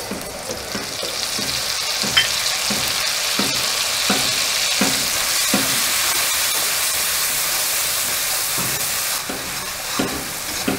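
Wet chilli-and-spice paste sizzling loudly as it hits hot oil in a metal kadhai, while a flat spatula stirs and scrapes the pan in regular strokes. The sizzle eases near the end as the water cooks off.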